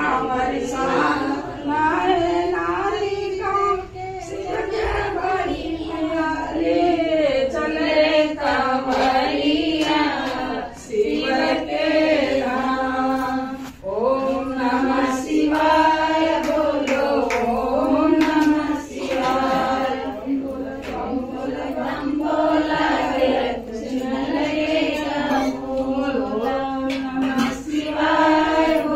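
A group of women singing a Hindi devotional Shiva bhajan together, a continuous melodic line with short breaths between phrases.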